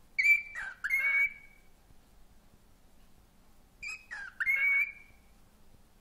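Cockatiel giving the same short whistled phrase twice, about three and a half seconds apart. Each phrase is a short note that dips in pitch and then a longer, steadier high note.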